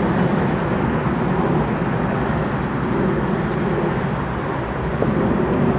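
Diesel locomotives of a slow convoy headed by a Class 56, their engines running with a steady low drone.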